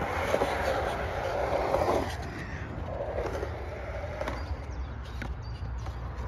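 Skateboard wheels rolling on concrete, louder for the first two seconds while close, then fainter as the board rolls away, with a few light clicks.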